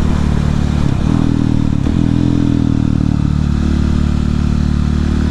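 Husqvarna 701 supermoto's single-cylinder engine running under way, heard from inside the rider's helmet with wind noise. Its note breaks off briefly twice in the first two seconds, climbs, then settles to a steady lower pitch.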